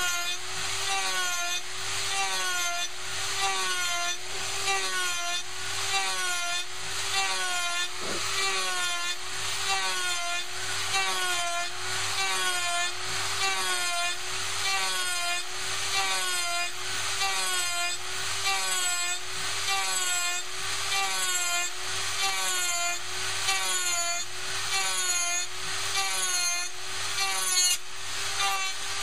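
Bosch 500 router running as the spindle of a small hobby CNC machine, its bit cutting a pocket in hardwood. A steady high whine with cutting noise, its pitch dipping and recovering about once a second.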